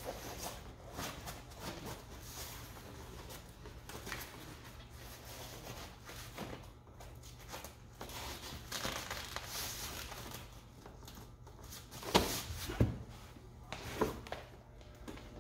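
Rustling and crinkling of a padded vinyl roll bar cover being wrapped around and pressed onto a Jeep's roll bar by hand, with a few short knocks near the end.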